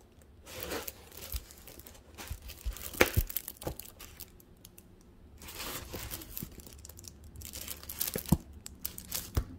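Thin plastic film on a rolled diamond-painting canvas crinkling as the canvas is handled, in irregular rustles with a few sharp clicks.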